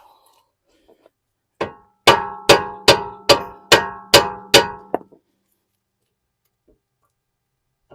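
Hammer striking a Phillips screwdriver set in a brake rotor's retaining screw, to shock the stuck screw loose: a lighter tap, then seven sharp blows about two and a half a second, each setting the steel ringing like a bell.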